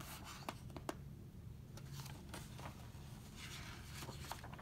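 Pages of a large picture book being handled and turned: a few light clicks, then a soft paper rustle about three and a half seconds in, over a faint low room hum.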